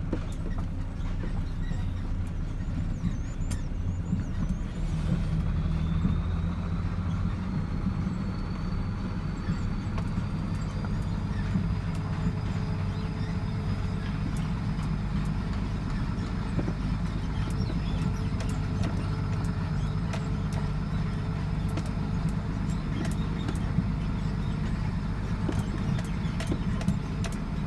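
Dump truck's diesel engine running steadily, with a faint high whine that rises about five seconds in and then holds.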